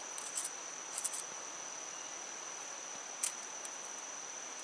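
A few faint clicks and rustles of a tape measure being pulled out and held against a knife blade, with one sharper click about three seconds in, over a steady high thin whine.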